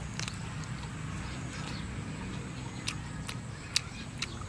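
A person chewing roasted duck meat bitten off the drumstick bone: a few scattered sharp mouth clicks and smacks over a steady low hum.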